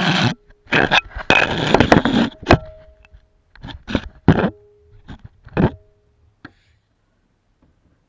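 A run of scrapes and knocks on a concrete floor, some with a short metallic ring. They are dense at first, then come as a few separate strokes and die away about two-thirds of the way through.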